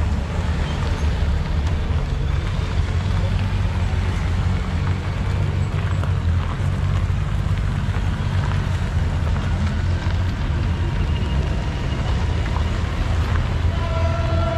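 Several Honda Gold Wing touring motorcycles rolling past slowly one after another, their engines making a steady low hum. A short steady tone sounds near the end.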